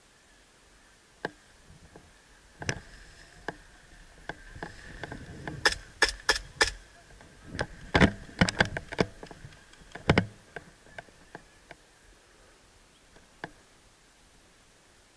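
Sharp snaps and clicks, single and in quick clusters, loudest in the middle, over rustling and a faint steady high drone.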